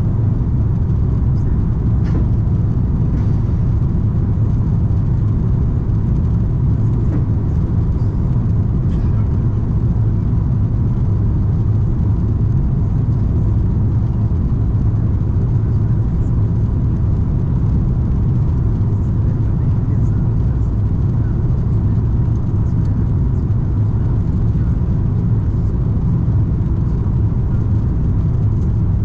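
Cabin noise inside an Airbus A340-300 airliner in flight: a steady, loud low rumble of airflow and engines, with a faint steady tone.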